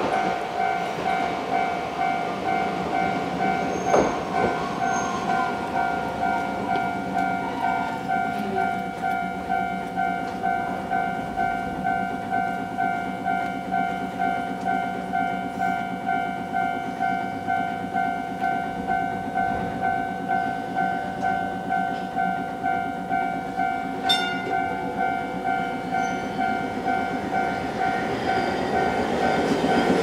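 Japanese level-crossing warning bell ringing its steady repeating "kan kan" ding. Near the end a Hankai Tramway tram running up to the crossing grows louder.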